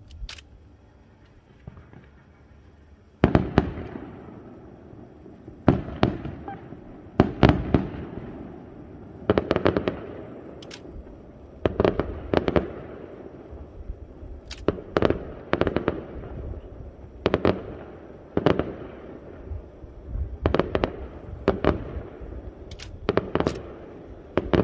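Aerial fireworks shells bursting: sharp bangs, often in quick pairs or clusters, every second or two from about three seconds in, each trailing off in a rumble.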